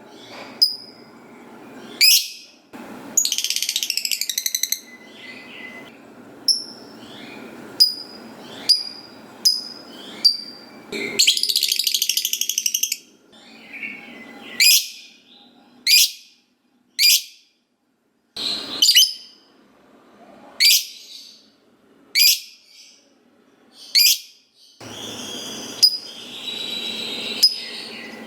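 Lovebird calling: sharp, high-pitched chirps repeated about once a second, broken twice by long, rapid chattering trills (the "ngekek" that keepers prize), the first about three seconds in and the second about eleven seconds in.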